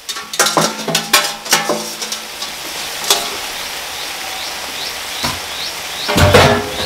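Steady hiss of greens cooking in a pot, with clinks and knocks of things being handled on the counter in the first two seconds and one more knock about three seconds in. Small bird chirps repeat through the second half, and a short, louder low sound comes just before the end.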